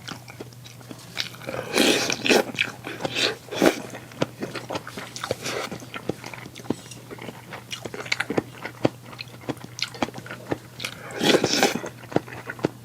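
Close-miked eating: chewing and crunching mouth sounds with many small clicks, and louder bursts about two seconds in, again at three and a half seconds, and near the end.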